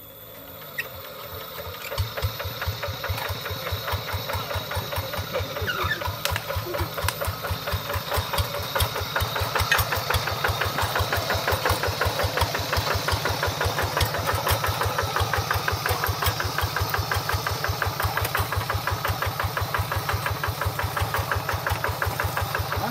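Single-cylinder diesel engine of a two-wheel hand tractor being started. It catches about two seconds in and settles into a steady, even chugging beat.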